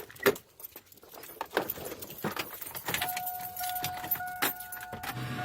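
A run of sharp, scattered clicks and rattles, then about three seconds in a steady pitched tone starts and holds.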